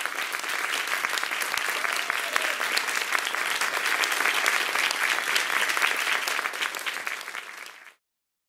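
Audience applauding, a dense patter of many hands clapping that swells and then fades out, stopping abruptly near the end.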